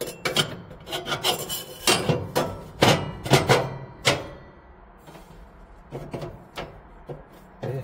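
Stainless steel heat-reflector plates scraping and knocking against the metal inside a gas grill's firebox as they are slid into place. There is a quick run of rasping strokes over the first four seconds, then a few lighter ones near the end.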